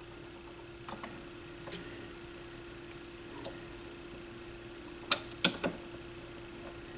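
Sparse mechanical clicks from a Technics SL-1301 turntable's automatic tonearm mechanism working through its start cycle: single clicks about one, two and three and a half seconds in, then a quick cluster of three about five seconds in. A faint steady hum sits underneath.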